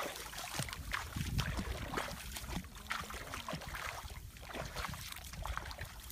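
Footsteps wading through shallow water and mud in a flooded rice paddy: irregular sloshing splashes and swishes.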